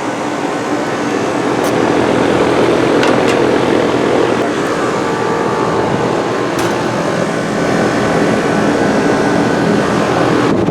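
Outdoor air conditioner and heat pump condenser units running: a steady, loud fan rush with a low compressor hum underneath.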